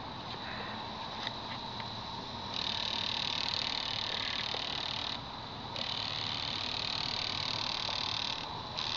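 A bank of six GM Multec fuel injectors on a homemade bench cleaner, firing in pulse cycles and spraying cleaning fluid into graduated cylinders at about 43.5 psi. The hissing buzz comes in runs of about three seconds with short half-second breaks between cycles.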